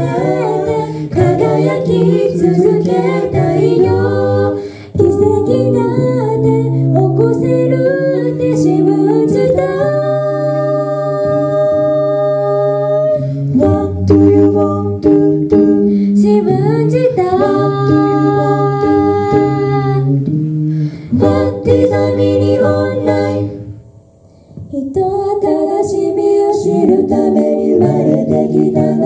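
Four-voice a cappella group of two men and two women singing a pop song into handheld microphones, amplified. Chords are held long, with a brief dip about five seconds in and a break of about a second near the end.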